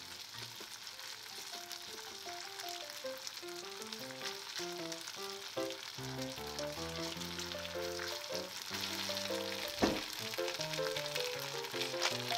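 Shredded raw potato strips sizzling as they fry in melted butter in a pan, a steady hiss, with background music of plucked notes and a single knock about ten seconds in.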